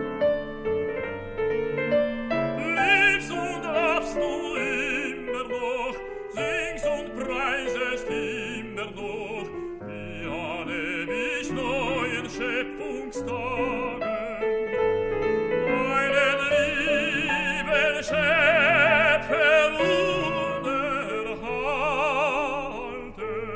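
A tenor sings a German art song with wide vibrato over piano accompaniment. The voice is loudest in long held notes about three-quarters of the way through.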